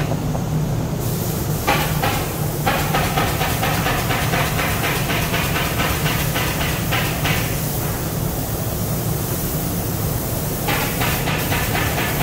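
Steady low hum of factory machinery. From about two seconds in until past the middle, and again near the end, a fast, even, higher-pitched mechanical rattle runs over it.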